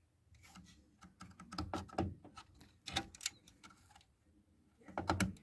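Irregular light clicks and short plastic rattles from handling RAM sticks in a desktop PC, coming in a few quick clusters.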